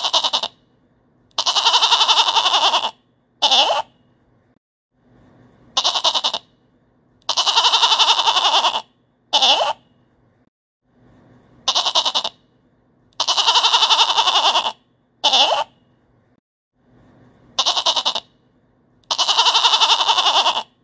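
Goat bleating in a repeating phrase: a short bleat, a long bleat, then a short bleat. The same three-bleat phrase comes round about every six seconds, each time with a faint low hum just before it.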